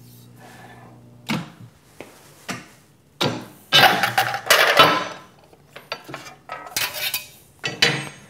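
An electromagnetic sheet-metal brake hums steadily while clamped, then lets go with a clunk about a second in. Clanks and rattling of thin sheet steel and the brake's clamping jaw follow as the bent part is pulled out and turned around, loudest in a burst of clatter in the middle.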